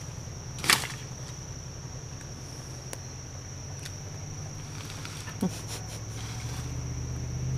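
A long-handled hand tool chopping into brush: one sharp strike about a second in and a lighter knock around five and a half seconds. Over it runs a steady, high-pitched insect drone, and a low hum grows toward the end.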